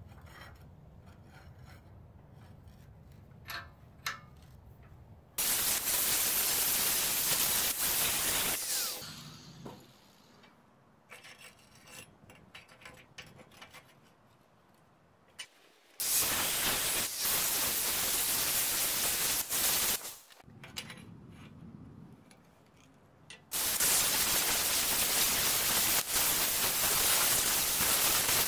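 Angle grinder with a thin cut-off wheel cutting the profile of a knife out of a Damascus steel billet, in three long cuts of a few seconds each. Between cuts, metal clicks and knocks as the billet is moved and re-clamped in a bench vise.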